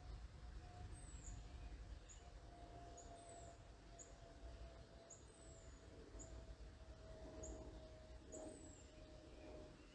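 Faint, high-pitched bird chirps repeating about once a second, some sliding down in pitch. Under them is a low steady hum that slowly drops in pitch, like a distant airplane passing, with a low rumble of background noise.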